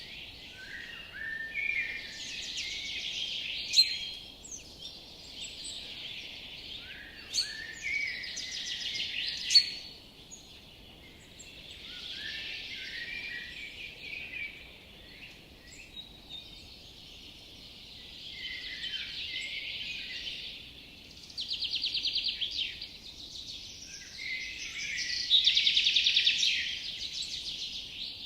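Several songbirds singing in a forest, overlapping phrases of chirps and whistled notes, with quick trills of rapidly repeated notes standing out louder about three-quarters of the way through and again near the end.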